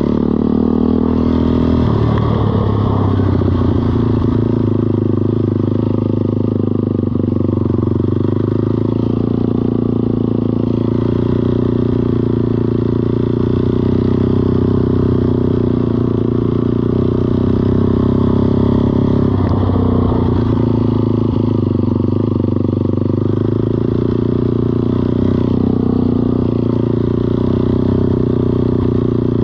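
An ATV engine running steadily at a near-constant speed, with brief small dips and rises in pitch about two-thirds of the way through.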